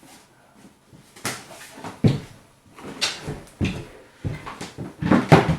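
Irregular knocks, bumps and rustles of a motorcycle tyre, tube and wheel parts being handled, about eight thumps in a few seconds, the loudest near the end.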